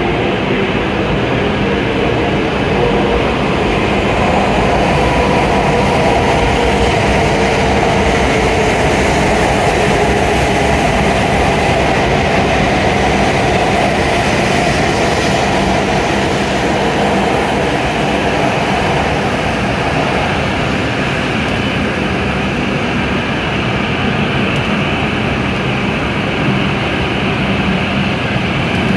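W7 series Shinkansen train pulling into the platform and slowing, with steady running noise from its wheels and running gear and a faint motor whine that falls in pitch as it brakes.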